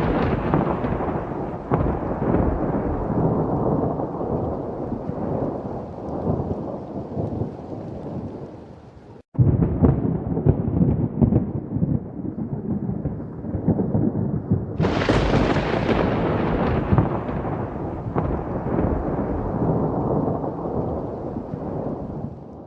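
Thunderstorm: rolling thunder rumbling over rain. The rumble fades, drops out for an instant about nine seconds in and picks up again, then a sharp, close thunderclap breaks about fifteen seconds in and rumbles slowly away.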